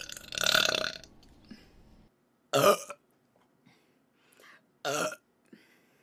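Three burps by a woman: a long one lasting nearly a second at the start, then two short ones, the loudest about two and a half seconds in and the last near the end.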